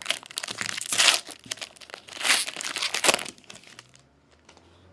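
Foil wrapper of a trading card pack crinkling and tearing as it is ripped open by hand, in several bursts that stop about four seconds in.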